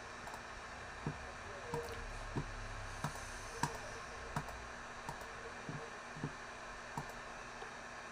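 A dozen or so sharp single clicks, roughly one every half second to a second, over a steady low hiss: clicking at a computer during a livestream.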